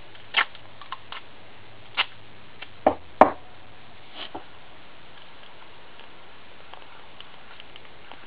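Several sharp taps and clicks from handling, the loudest about three seconds in.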